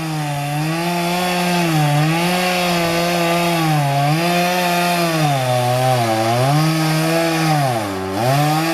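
Two-stroke chainsaw cutting into a palm tree trunk. Its engine note sags and recovers about every two seconds, dipping lowest near the end.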